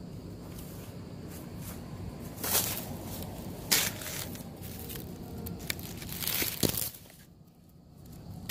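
Handling noise from a camera being knocked over and falling: rustling and scraping with a few sharp knocks, the loudest two near the start and a pair later on, over a low steady rumble.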